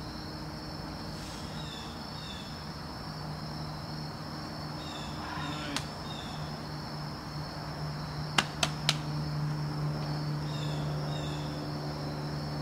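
Steady high drone of woodland insects, with short chirps repeating now and then and a low steady hum beneath. A sharp knock about six seconds in, and three quick sharp knocks a little past the middle, the loudest sounds, like hands or shoes slapping the rock.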